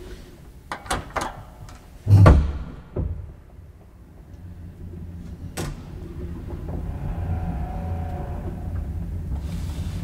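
Elevator machinery after a floor button is pressed: a few sharp clicks and a heavy clunk about two seconds in, then a steady low hum that grows louder as the car runs.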